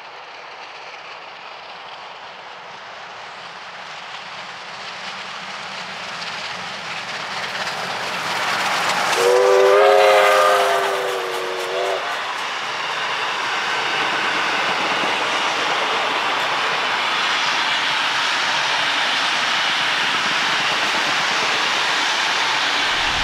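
R class Hudson steam train approaching and growing steadily louder. About nine seconds in, the locomotive's steam whistle sounds for about three seconds. The carriages then roll past with steady wheel and rail noise.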